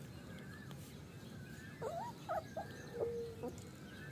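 A puppy whimpering while being handled: a few short, high, bending yips about two seconds in, then one held whine near three seconds.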